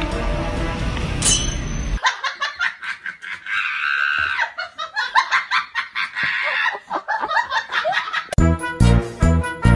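Background music that cuts off about two seconds in, followed by several seconds of choppy laughter; near the end a different tune with a heavy, steady beat starts.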